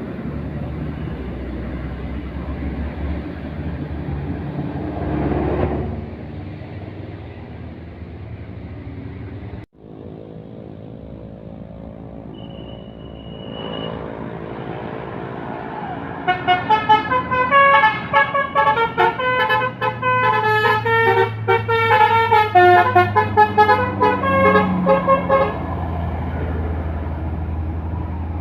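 Indonesian multi-tone 'telolet' bus horn playing a rapid string of short notes that jump between pitches for about ten seconds, starting about halfway in, over a bus engine running. Before the horn there is only engine and road noise.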